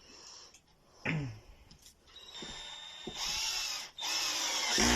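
Cordless 18V drill driver with a Pozidriv bit driving a screw into wood. The motor whines up a little after two seconds in, then runs in two loud bursts with a short break between them.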